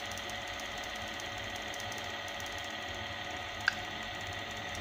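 Small two-speed electric motor running steadily at high speed, a steady whine over a low hum. There is one brief click about three and a half seconds in.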